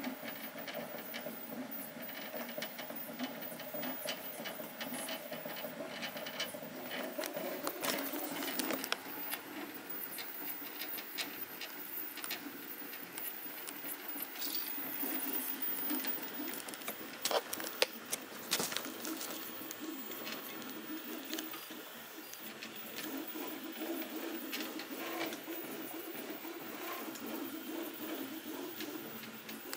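XYZ da Vinci 1.0A 3D printer printing, its stepper motors running near-silently on SilentStepStick drivers, so the motion is mostly a soft hum. Over it runs a light rattling with scattered clicks from the moving print-head mechanism, sharpest a little before the middle.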